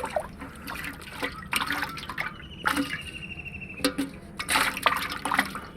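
Water splashing and dripping in an irregular run of short splashes.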